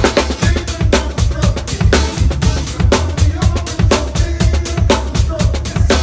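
Drum kit played close up in a busy funk groove, with snare hits, bass drum and cymbals, while the band's bass and other instruments play along.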